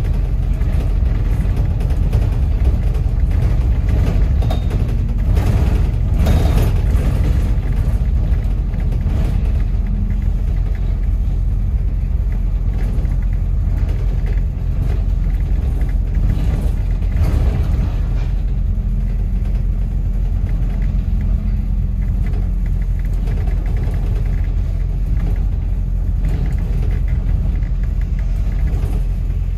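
Inside a moving double-decker bus: a steady low rumble of engine and road noise, with a few brief knocks and rattles from the bus body.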